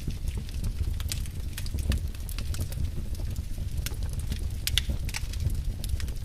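Wood fire crackling in a fireplace: irregular sharp pops and snaps, a few a second, over a steady low rumble.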